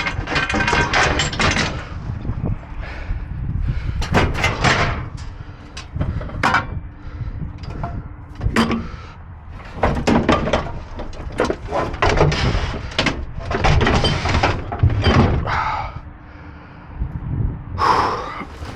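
Irregular banging, scraping and clattering of junk and metal in a dumpster as a heavy commercial cord reel is wrestled loose and dragged.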